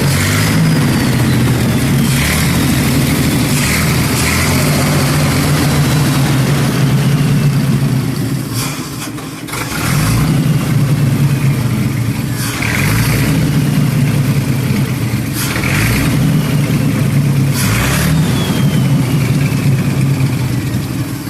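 ZIS-150 truck's inline-six petrol engine running, blipped to higher revs for a moment every few seconds and settling back to idle between.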